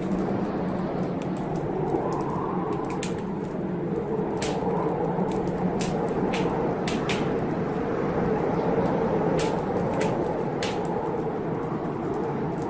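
Wood fire in a fireplace crackling, with irregular sharp pops and snaps over a steady low rushing noise.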